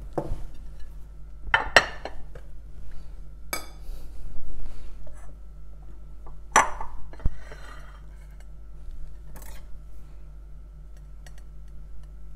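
Ceramic bowls and a ceramic plate clinking and knocking as they are handled and set down on a granite countertop: about half a dozen sharp clinks spread over the first ten seconds, over a faint steady hum.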